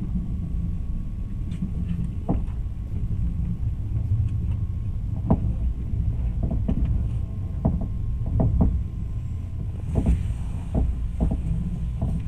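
Low, steady rumble of a moving train carriage, heard from inside, with irregular knocks and clicks from the wheels and running gear.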